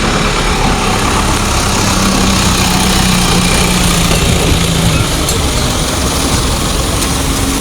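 A heavy vehicle's engine running, with a steady low drone that shifts slightly higher in pitch about five seconds in, over constant traffic noise.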